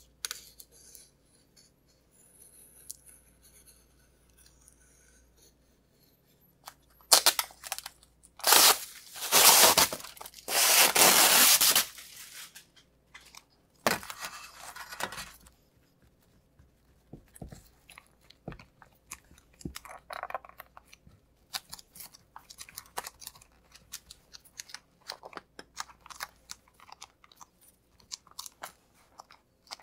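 Hand work on prepreg carbon fibre cloth: several loud tearing, peeling noises about a quarter to halfway in, then many light crackles and taps as gloved hands press and smooth the sticky cloth onto the mould.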